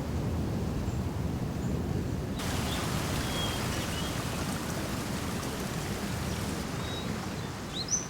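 Steady rain with a low rumble underneath; a brighter, hissier layer joins about two and a half seconds in. A few faint, short, high bird chirps come through, the last a quick rising chirp near the end.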